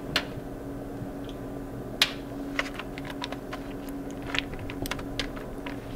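Light, irregular clicks and crinkles of aluminium foil lining a baking pan, as raw fish fillets are pressed into it by hand. A steady hum runs underneath.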